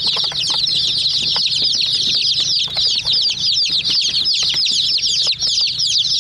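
A group of domestic chicks peeping without pause, many high, short chirps that slide downward in pitch and overlap one another, with scattered light taps among them.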